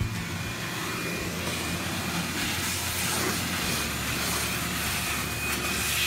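Corded electric sander running steadily over the face of a wooden cutting board, the motor's whine over the scratch of sandpaper on hardwood.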